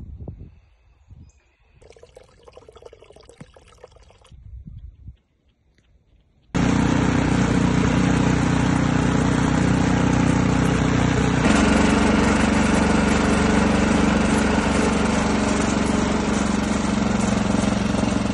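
Faint rustling at first. Then, about six seconds in, a gas snowblower's small engine starts up suddenly and keeps running loud and steady. Its pitch and level step up a little about halfway through.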